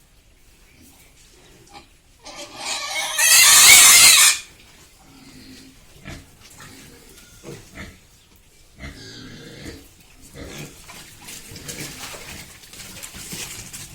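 A pig squealing loudly for about two seconds, followed by fainter grunts and scattered short noises from the pigs.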